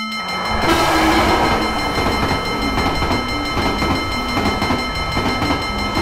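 Sound effect of a train passing a level crossing: a loud rumbling rattle starts about a second in and keeps up. Under it a marimba-like tune and a steady high ringing carry on.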